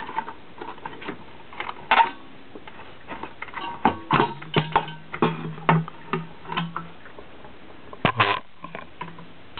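Handling noise of a metal halide lamp being screwed into an E27 lampholder in a street-lamp housing: scattered clicks and knocks, with a few short low-pitched tones around the middle and a louder clatter about eight seconds in.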